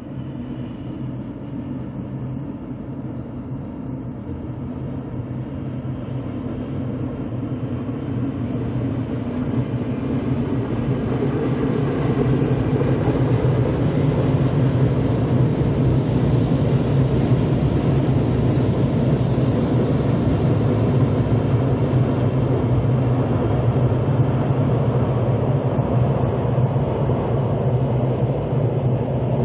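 Electric locomotive hauling a Mugunghwa passenger train past: a steady rumble of wheels on rail with a low hum. It grows louder through the first half and eases slightly near the end.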